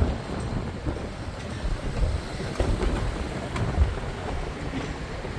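Strong gusting wind buffeting the microphone, an uneven low rumble that swells and drops, with a few faint clicks.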